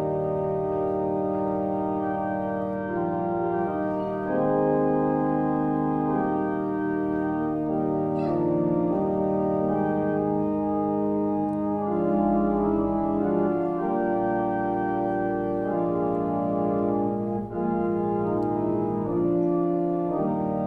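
Organ playing slow, sustained chords as offertory music, the chords changing every second or two.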